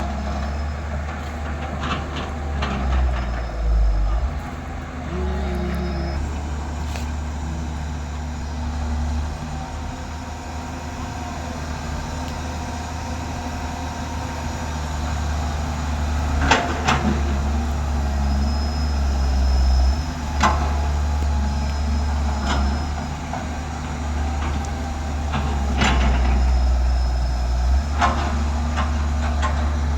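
Heavy diesel engine of earth-moving machinery running steadily, with a sharp knock about halfway through and a few more near the end.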